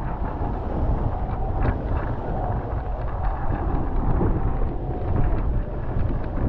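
Heavy wind buffeting on the microphone of an action camera mounted aboard a Nacra 15 catamaran sailing fast, with water rushing and spraying off the hull. A faint high hum comes and goes through it.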